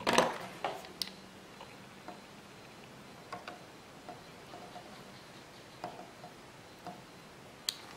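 Scattered small clicks and taps as wires and a soldering gun are handled over a perforated circuit board: a few sharper clicks in the first second, then sparse light ticks.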